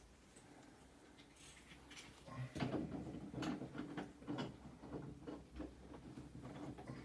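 Light irregular clicks, taps and rattles of hands handling a bar shower and its fittings, starting about two and a half seconds in after a quiet start.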